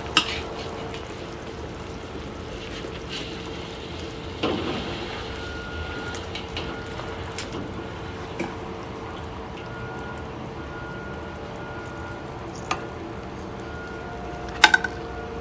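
Soy-sauce braising liquid sizzling and bubbling in a steel wok over a steady hum, with occasional clicks and scrapes of a metal spatula and wooden spoon against the wok as a whole chicken is lifted out. A sharper double knock comes near the end as the chicken is set down.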